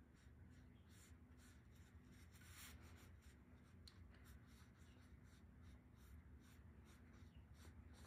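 Near silence: faint, repeated soft strokes of a watercolour paintbrush on paper, over a low steady hum.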